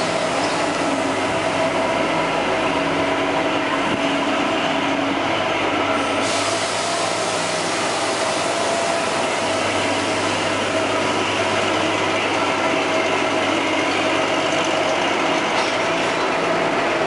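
Narrow-gauge diesel locomotive's engine idling steadily: a constant drone with several held tones.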